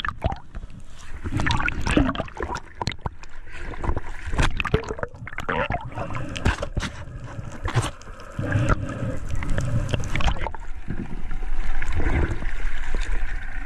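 Water sound picked up underwater through an action-camera housing: muffled gurgling with many irregular clicks and knocks, then water splashing near the end as the swimmer surfaces and reaches the boat.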